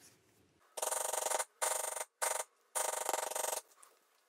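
Rapid, even tapping of a lightweight maul on a Barry King steep-edge beveler, walking the tool along the cut lines of tooling leather to bevel them. The taps come in four quick runs with short pauses between them, starting about a second in.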